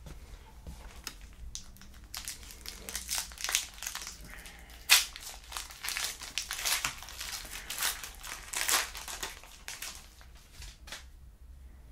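Plastic trading-card pack wrappers crinkling as a pack is handled and torn open, a run of irregular crackles that dies away near the end.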